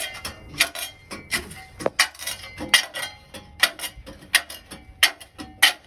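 Shovel blade chopping at tree roots inside a concrete septic tank: a steady series of sharp metal strikes, about ten of them, some with a short ring.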